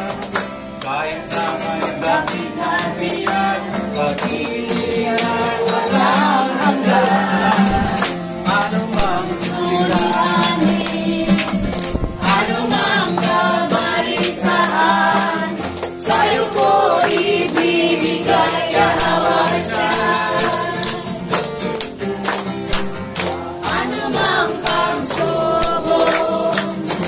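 A congregation singing a Tagalog praise song in unison to an acoustic guitar, with hands clapping along in time.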